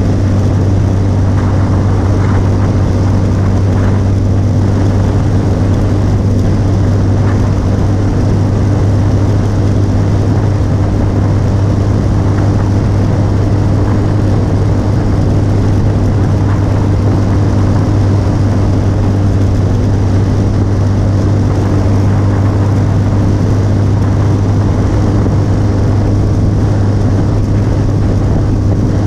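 Motorcycle engine running at a steady cruising speed, its low drone holding an even pitch throughout, under a constant rush of wind and road noise.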